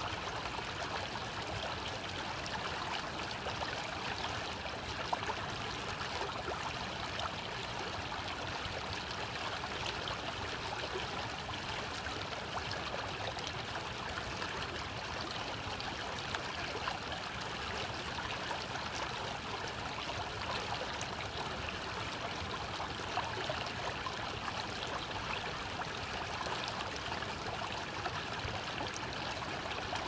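Shallow snowmelt stream running steadily over stones, a continuous babble of rippling water.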